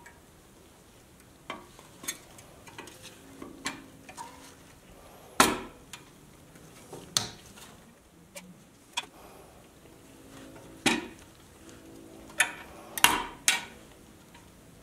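Pressed-steel parts of a 1963 Tonka tow truck clinking and knocking together as the tow boom is fitted onto the body: irregular sharp metal taps, some leaving a brief ring, the loudest about five seconds in and a cluster near the end.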